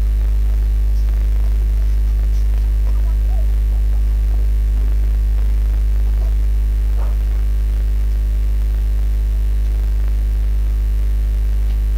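A loud, steady low hum throughout, with a few faint pops of the milk, carrot and sugar mixture starting to bubble in the pan.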